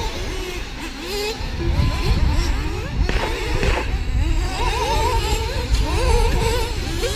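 Several radio-controlled model racing cars running on the track, their motors whining in many overlapping pitches that rise and fall as they accelerate and slow, with a low rumble of wind on the microphone from about a second and a half in.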